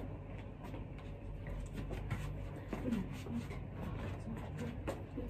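Faint scattered taps and scuffs of slide sandals stepping on a tiled floor, with brief faint voices now and then in the background.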